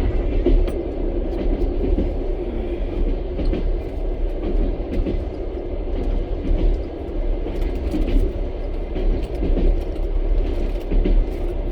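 Passenger train running at speed, heard from inside the carriage: a steady low rumble with irregular clacks of the wheels over the rail joints.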